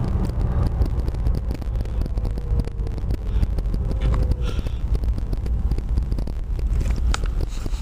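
A car driving, heard from inside the cabin: a steady low rumble of engine and road noise. In the first half a faint whine slowly drops in pitch.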